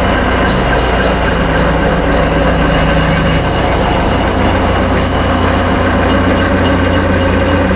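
Dense soundscape drone: a loud, steady deep rumble like a heavy idling engine, layered with sustained tones. One low tone drops out about three seconds in.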